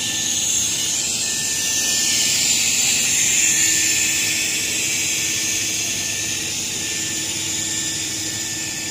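CNC table plasma cutting machine running with a steady, high-pitched hiss and a faint whine, swelling slightly around the middle.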